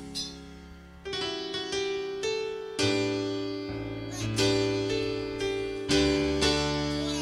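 Church keyboard playing slow, held chords. It is soft at first, and new chords are struck from about a second in.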